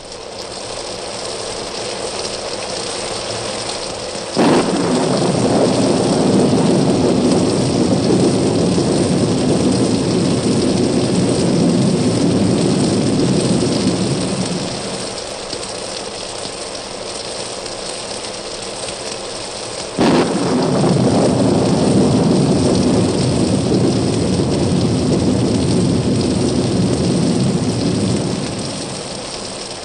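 Heavy rain hissing steadily through a thunderstorm, broken twice, about fifteen seconds apart, by a sudden thunderclap that rolls on into several seconds of loud rumbling before easing back to the rain.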